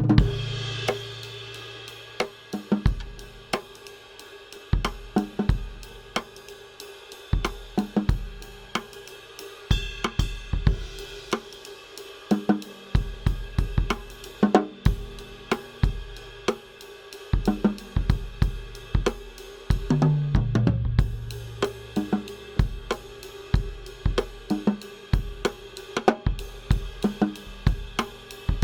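Acoustic drum kit playing a groove of kick, snare and hi-hat with cymbal hits, picked up by the Yamaha EAD50's single built-in overhead microphone with its dry tone. A heavier accent with a low ringing decay comes about twenty seconds in.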